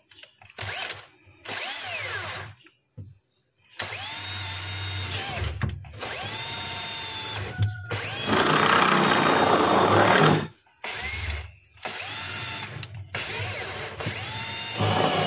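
Cordless drill boring holes into the refrigerator's inner liner. It runs in several short bursts, its motor whining up in pitch at each start. The loudest stretch of bit-cutting noise comes about eight to ten seconds in.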